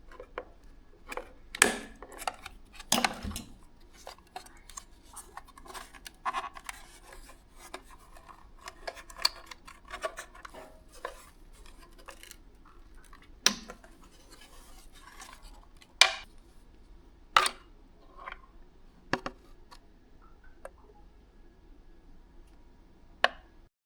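Hand tools and plastic parts being worked by hand: irregular sharp clicks and knocks, some quite loud, with light scraping and rubbing between them.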